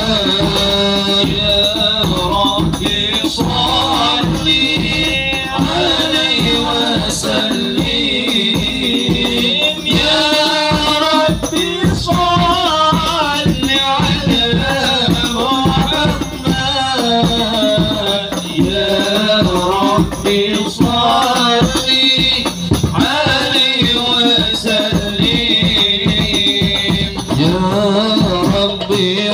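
Devotional sholawat singing with hadrah percussion: voices sing a bending melody over steady hand-drum beats and constant jingling tambourine-like shaking.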